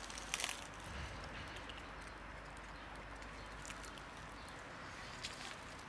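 A few faint, short crackles of dry fallen leaves shifting underfoot, over a low steady outdoor background.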